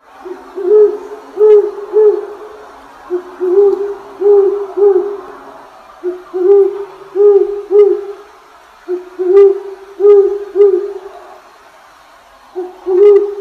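An owl hooting: short hoots that rise and fall in pitch, given in groups of three, with a group about every three seconds.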